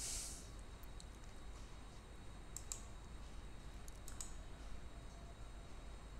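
Faint computer mouse clicks, a few scattered over several seconds, over a low steady hum, with a short hiss at the very start.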